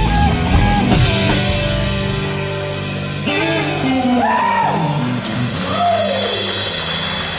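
Blues-rock power trio of electric guitar, bass and drum kit playing, with cymbal hits in the first second. About two seconds in the drums drop away, leaving held notes and long sliding notes that bend up and down.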